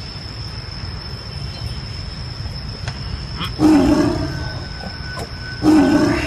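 White tiger snarling twice, two short loud roars about two seconds apart.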